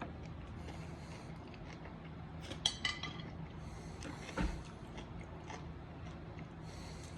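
Quiet chewing and mouth sounds of someone eating a mandarinquat, a small citrus fruit eaten skin and all, with two sharp clicks near the middle and a soft thump shortly after.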